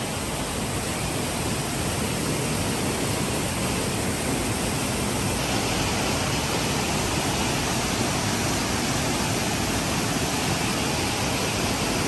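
Waterfall: the steady, even rush of falling water.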